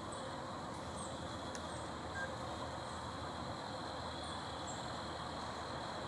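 Woodland outdoor ambience: a steady hiss with a faint high drone and a few short, faint high-pitched chirps.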